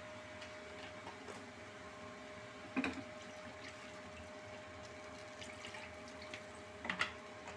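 Thin mustard sauce bubbling in a kadai on the stove, with small scattered pops. Two brief knocks, about three seconds in and near the end, stand out over the bubbling.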